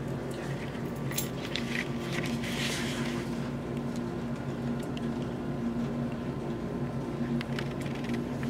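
Steady low hum, with scattered light clicks and a brief rustle about two and a half seconds in.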